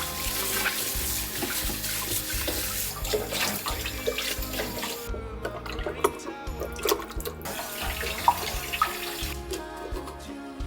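Tap water running into a sink, with a few light clicks; the flow stops about halfway and runs again briefly. Background music plays underneath.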